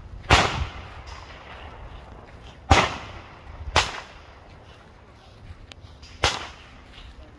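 Four gunshots at uneven intervals, each a sharp crack followed by a short echoing tail.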